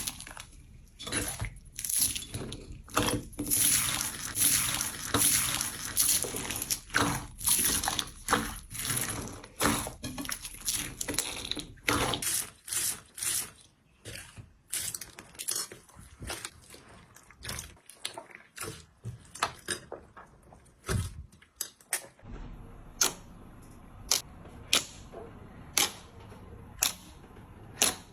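Slime being squeezed and pressed by hand, making dense wet clicks, squelches and pops. After about twelve seconds these thin out, and near the end they give way to sharp single clicks about once a second.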